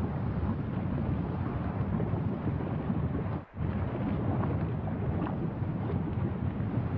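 A deep, steady rumbling noise that cuts out for a split second about halfway through, with a few faint ticks over it.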